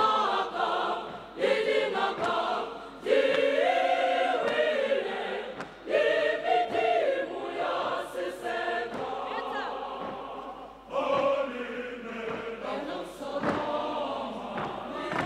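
Large youth church choir singing in full voice, in phrases that each come in strongly and then fade before the next entry.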